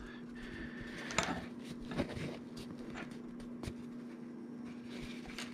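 Quiet handling sounds, a few soft ticks and rubs from fingers pressing the freshly glued halves of a wireless earbud's plastic shell together, over a steady hum.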